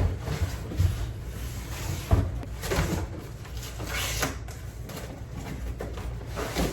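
Cardboard packaging being opened and handled: rustling and scraping with several knocks, the loudest about two seconds in.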